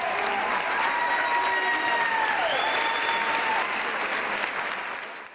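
Audience applauding steadily, then fading and cutting off abruptly near the end.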